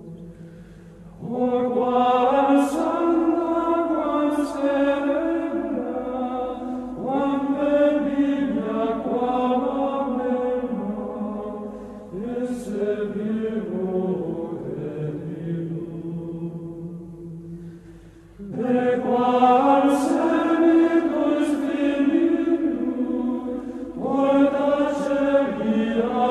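Choral chant: voices sing long held notes in slow phrases, pausing briefly about a second in, about twelve seconds in and about eighteen seconds in.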